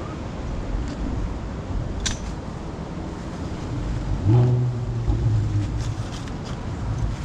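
Fast-flowing stream water rushing steadily, with wind rumbling on the microphone. There is a sharp click about two seconds in. A low droning hum, the loudest sound, comes in a little after four seconds and lasts about a second and a half.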